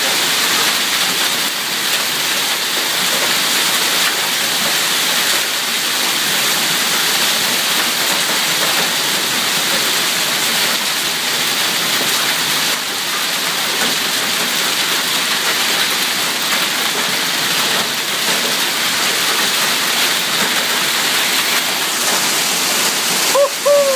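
Hailstorm: hail mixed with rain pelting down heavily, a dense, steady hiss with no let-up.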